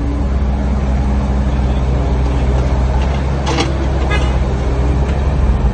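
Heavy diesel engine of the earthmoving machinery running steadily at a constant speed, with a low, even drone. A short voice cuts in briefly a little past the middle.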